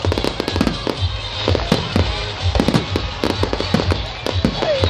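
Aerial fireworks shells bursting in a rapid, irregular string of bangs and crackles, with music playing underneath.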